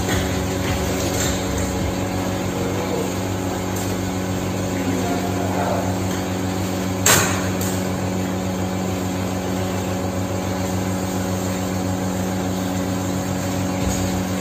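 Steady mechanical hum, with one sharp click about seven seconds in.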